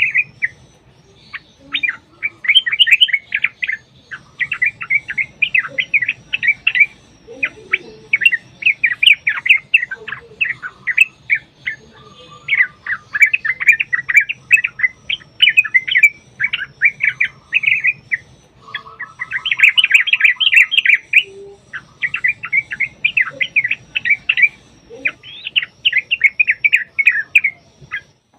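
Yellow-vented bulbul (trucukan) singing fast, bubbling chattering phrases one after another, each a second or more long with brief pauses, the long rapid 'ropel' song used as a lure to make other bulbuls answer. A short buzzy rattle sounds about two-thirds of the way through.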